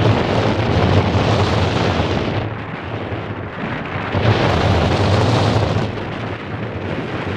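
Wind buffeting the microphone in flight: a loud, deep rush of air that eases for a moment after about two and a half seconds, swells again, and eases near the end.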